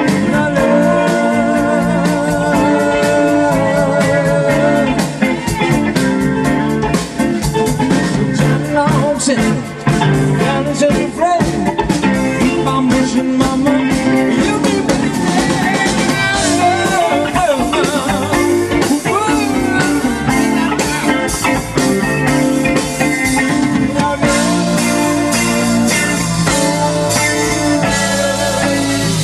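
Live band playing a bluesy rock number: electric guitar, bass and drum kit, with a wavering lead melody over a steady beat.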